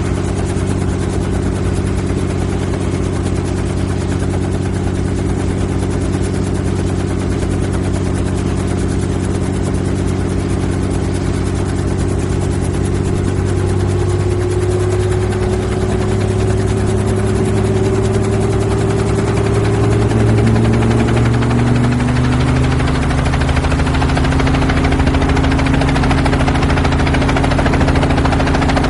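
Helicopter in flight heard from inside the cabin: a steady drone of engine and rotor. About halfway through, its pitch shifts and rises a little.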